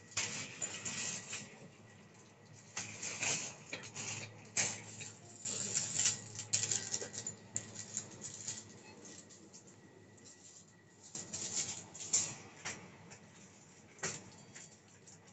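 Irregular bursts of rustling and crinkling, with quieter gaps between them, over a steady low hum.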